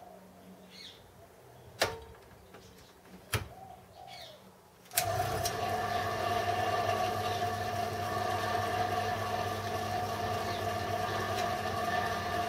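Two sharp clicks from the controls, then about five seconds in the home-built Gingery milling machine's motor and belt drive start up and run steadily with an even hum and whine, running very smoothly.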